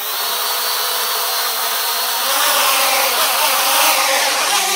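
Small homemade quadcopter's electric motors and propellers running at speed with a loud, steady whir and whine. The quad rocks against its tether, and the motors begin winding down right at the end.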